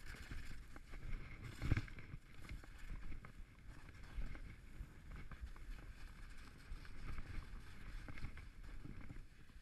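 Skis sliding and scraping over snow during a fast descent, an uneven rumbling rush with scattered knocks and one louder thump about two seconds in.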